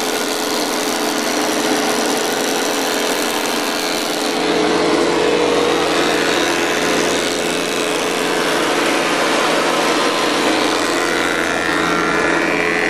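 Belsaw 12-inch planer/molder running and cutting a molding profile in a wood board: a steady machine drone under the hiss of the cutterhead chipping the wood. It grows a little louder and deeper about four seconds in.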